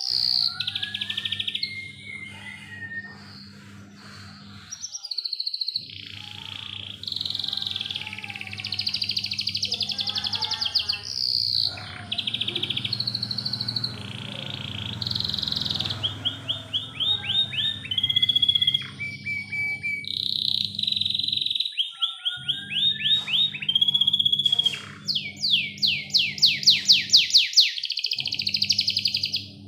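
Domestic canary singing a long, near-continuous song of fast trills and rolling runs of repeated notes, with a few brief pauses.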